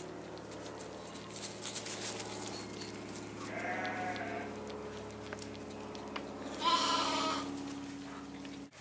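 Sheep bleating twice: a short bleat about three and a half seconds in and a louder one near seven seconds, over a steady low hum.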